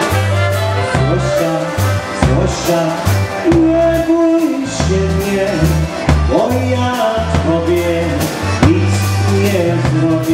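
Polka band playing a waltz: a clarinet and trumpet melody over a steady bass line and drum kit, in an instrumental passage without vocals.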